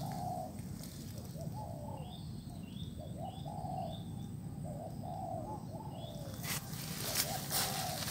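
Spotted doves cooing over and over in short repeated phrases. A few brief higher chirps come through in the middle, and a couple of sharp rustles or knocks sound near the end.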